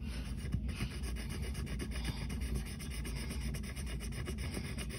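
Felt-tip marker scrubbing back and forth on paper, colouring in an area with quick, closely spaced scratchy strokes.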